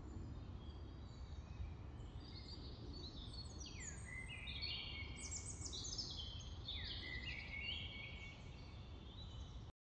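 Birds calling: a run of quick, high chirps and whistles, some sliding down in pitch, over a low steady rumble of background noise. Everything cuts off abruptly near the end.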